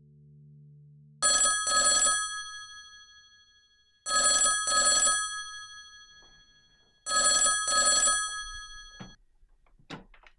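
Rotary desk telephone's bell ringing: three double rings about three seconds apart, each leaving a bell tone that fades away. Near the end come two short clicks as the handset is lifted from its cradle.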